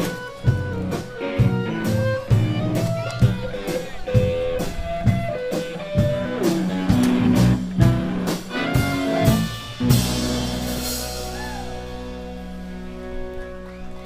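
Live band playing a busy blues passage over a drum kit, closing on a final hit about ten seconds in, with the last chord held and ringing out.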